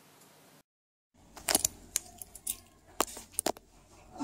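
After a brief dead gap, a string of sharp clicks and light rattles of small hard objects being handled, about half a dozen over two to three seconds.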